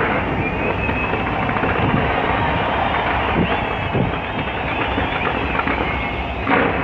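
A continuous barrage of fireworks crackling and banging, with louder bursts at the start and near the end, and a few thin high whistles through it.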